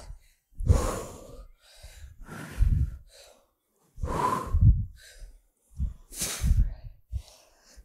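A woman breathing hard with exertion during weighted lunge and hinge reps: about five forceful breaths, roughly one every one and a half to two seconds, in time with the reps.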